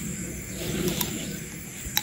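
Steady high-pitched insect drone of an outdoor rural ambience, with a faint click about a second in and a sharper, louder click near the end.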